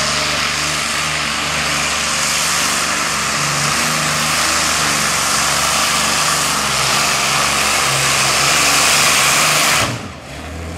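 Multi-engine modified pulling tractor running at full power as it drags the weight-transfer sled down the track, a loud, dense engine noise. It builds slightly, then cuts off abruptly near the end.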